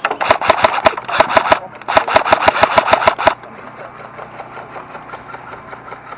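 Airsoft electric gun firing full-auto in two long bursts of rapid, even shots, with a short pause between them. Fainter rapid fire carries on after the bursts stop.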